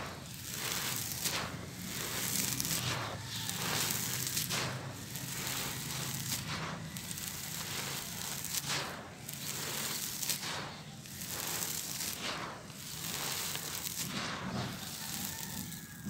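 Dry sand-cement mix crumbled in the hands and poured back onto the heap: a continuous gritty crackling hiss that swells and eases with each scoop, every two seconds or so.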